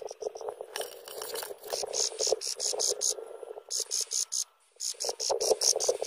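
Nestling songbirds begging for food: runs of rapid, high-pitched peeps repeated several times a second, with a lower rasping chatter underneath.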